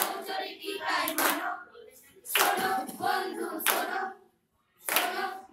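Voices singing in short phrases of about a second and a half, with brief pauses between them.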